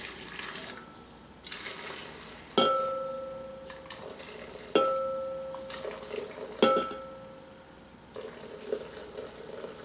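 Aloe vera juice pouring from a metal pot into a glass beaker as a thin stream. There are three sharp clinks about two seconds apart as the pot's rim knocks the beaker, and each rings out for about a second.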